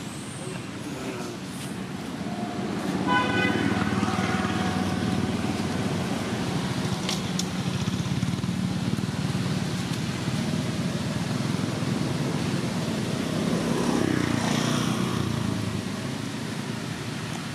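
A motor vehicle's engine running, with a short horn toot about three seconds in.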